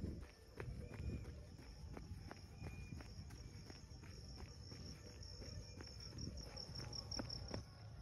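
Faint steady high trilling of crickets, over low rumbling and soft thuds about twice a second from running footsteps and the hand-held phone jostling.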